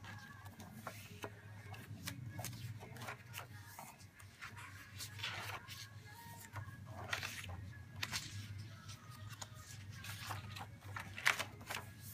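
Pages of a spiral-bound, paper-and-cardstock notebook being turned by hand: irregular paper rustles and flaps over a steady low hum.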